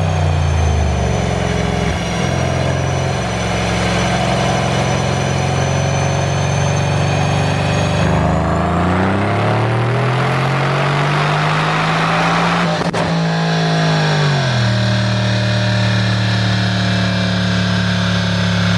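Mercedes-AMG C63 S twin-turbo V8 idling, then revved up once over several seconds about halfway through. Near the peak of the rev there is a sharp crack from the pop-and-bang exhaust tune, and the engine then drops straight back to a steady idle.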